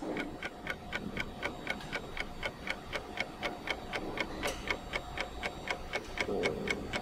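Clock ticking sound effect, fast and even at about five ticks a second, over a faint steady tone; it marks time passing.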